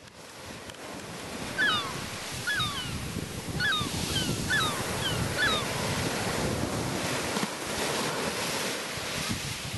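Surf washing up and over a sandy beach, fading in from silence over the first second. A bird gives a string of short falling calls in the first half.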